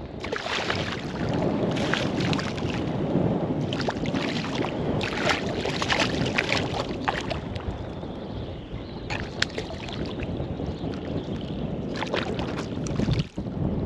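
Water splashing and sloshing as a hooked fish thrashes at the surface close to a wading angler, with irregular splashes over steady wind noise on the microphone.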